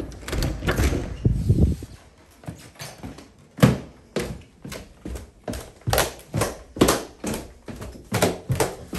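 An interior door opened by its lever handle, with latch and knocking sounds, followed by footsteps going down a staircase at about two steps a second.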